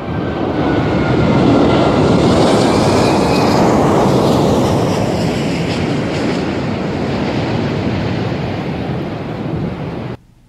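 Jet airliner passing low overhead: a loud engine roar that peaks about two seconds in, with a whine sliding down in pitch as it goes past. It then fades slowly and cuts off suddenly near the end.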